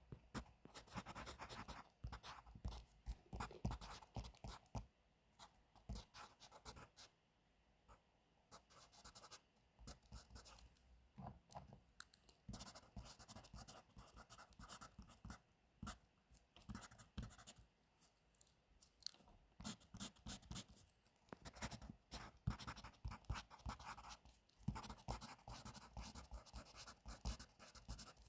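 Pencil writing on paper in runs of quick scratchy strokes, pausing briefly a few times.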